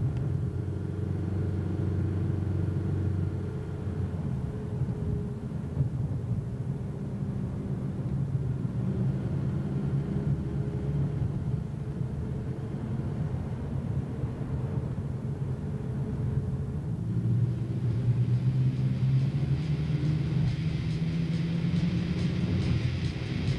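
Car engine and road noise heard from inside the cabin while cruising on a highway: a steady low drone. A brighter hiss joins in over the last few seconds.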